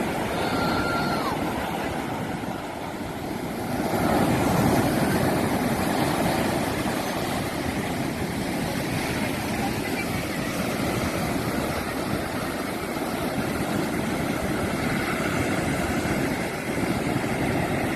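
Steady wind buffeting the microphone over the wash of large ocean waves breaking as surf, swelling about four seconds in.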